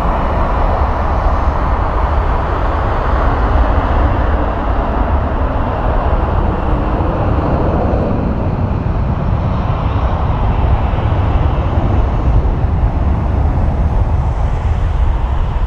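Jet engines of a Condor narrow-body twinjet at takeoff thrust during a rolling takeoff: a loud, steady rushing noise as the aircraft accelerates down the runway.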